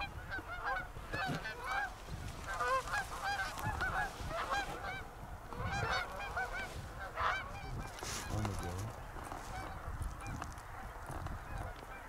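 Canada geese honking and clucking in quick, overlapping calls, busiest in the first half and thinning out after about seven seconds, over a low wind rumble on the microphone.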